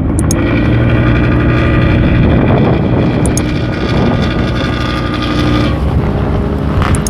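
Engine of a wooden fishing boat running steadily under way, a strong low hum with a higher whine over it that fades out about six seconds in. A few faint clicks.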